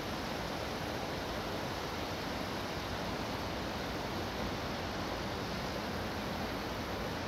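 Freight train rolling across a steel truss bridge in the distance: a steady, even rushing rumble of wheels on the rails, with no horn or engine tone.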